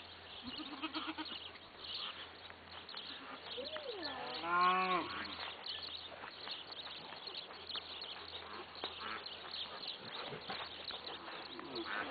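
A farm animal gives one drawn-out, wavering call, bleat-like, about four seconds in, lasting about a second and a half, its pitch first swooping up and down and then holding.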